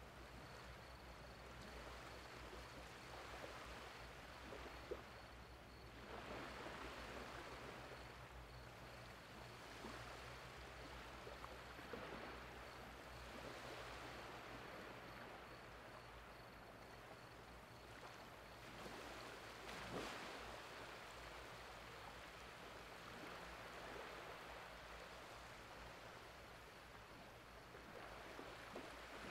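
Small, gentle waves lapping and washing over a shallow sandy beach on an incoming tide, swelling softly every few seconds; faint, with a steady low hum underneath.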